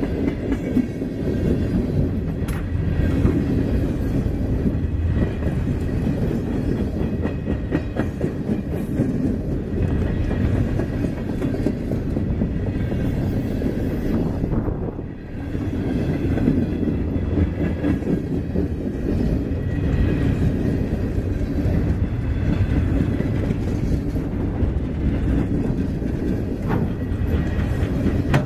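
Freight train's loaded flatcars rolling steadily past, with a continuous rumble and the wheels clicking over rail joints. The sound eases briefly about halfway through, then picks up again.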